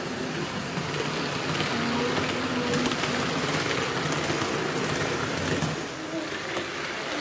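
H0-scale model train, a red-and-white SBB regional multiple unit, running along the layout's track past the microphone, giving a steady rolling rumble of wheels and motor.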